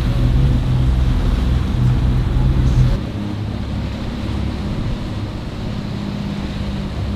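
Twin outboard motors running a fishing boat under way, a loud low hum mixed with wake, water and wind noise. About three seconds in the sound drops to a quieter, steadier hum.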